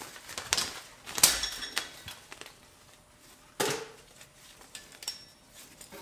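Nylon webbing of a standard ratchet strap being pulled loose and shaken out by hand: irregular swishes and flaps with several sharp knocks, the loudest about a second in and again past three and a half seconds in.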